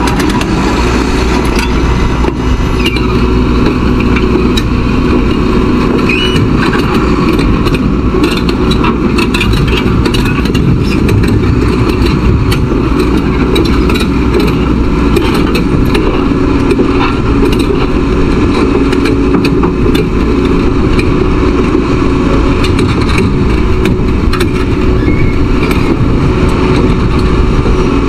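Liebherr R 930 crawler excavator travelling on its steel tracks: a steady, loud diesel engine rumble with frequent short clicks and clanks from the track links.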